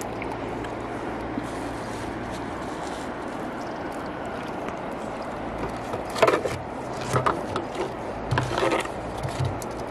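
Steady outdoor background noise, then a few short, sharp scrapes and knocks in the last few seconds as plastic-bottle fish traps are handled and moved.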